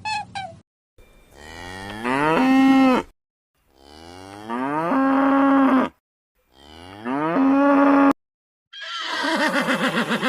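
A cow mooing three times, each moo rising in pitch, then holding a steady low tone before cutting off. Near the end a horse starts to whinny with a fast quaver.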